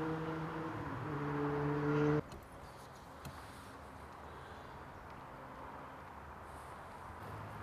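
An emergency-vehicle siren sounding a steady pitched tone that shifts slightly in pitch, cut off abruptly about two seconds in. After that there is quiet outdoor ambience with a few faint chirps, and a low rumble that grows a little near the end.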